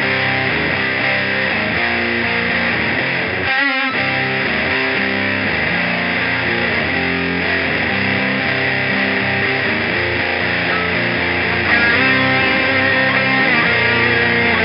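Electric guitar played through distortion pedals, ringing out heavy sustained chord riffs. There is a brief break with a wavering sweep about three and a half seconds in, and a louder chord hits near the end.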